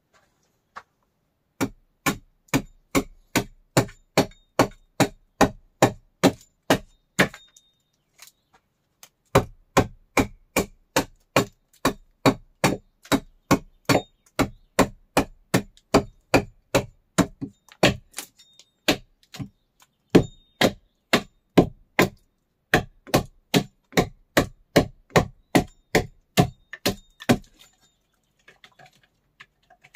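Quick, even hammer blows, about two or three a second, in runs of several seconds with short pauses between them, some blows with a slight metallic ring.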